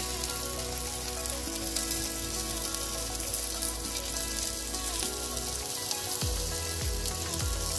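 Beef burger patty sizzling steadily in butter in a ridged grill pan over medium heat, as a cheese slice melts on top. Soft background music with held notes plays along.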